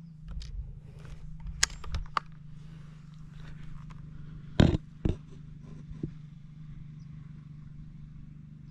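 A scoped air rifle fires once about halfway through: a single sharp crack, followed half a second later by a second, smaller crack. A few light clicks come about two seconds in, and a steady low hum runs underneath.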